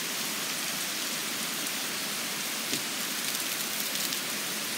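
Heavy thunderstorm rain pouring down in a steady hiss, with one small tap a little past the middle.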